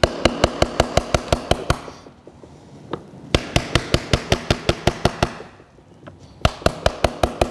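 Quick, light hammer taps on the butt of a screwdriver held against an Acura NSX ABS modulator, driving it in to work a part loose. The taps come in three runs of about seven a second, with short pauses between the runs.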